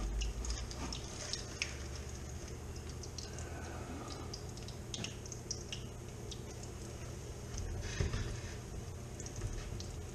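Fish fillets frying in melted butter in a skillet: a steady sizzle with many small, irregular crackles and pops.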